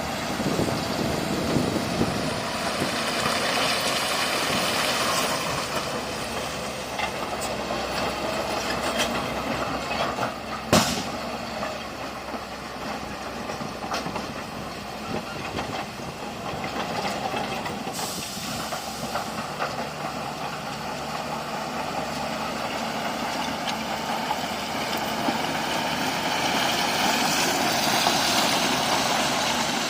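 Heavy diesel earthmoving machinery working, its engine running steadily under continuous mechanical noise, with one sharp knock about eleven seconds in.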